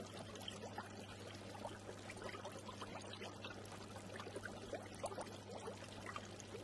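Faint aquarium water trickling, with many small drips and bubbles popping over a steady low electrical hum.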